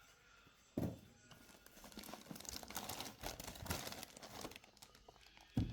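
Plastic packaging crinkling and rustling as a boxed power supply and its bag of cables are unpacked, with a soft knock a little under a second in and another near the end.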